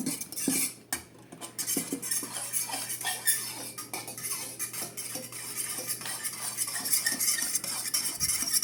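A utensil stirring raw eggs in a bowl to break up the yolks: quick, continuous clinking and scraping against the bowl.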